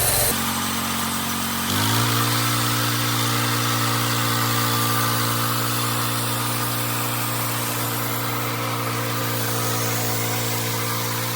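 Engine of a homemade bandsaw mill running steadily; its pitch rises about two seconds in and then holds even.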